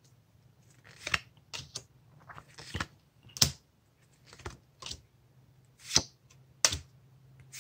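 Pokémon trading cards being slid and flicked one past another in the hand: a string of short, irregular papery clicks and swishes of card stock.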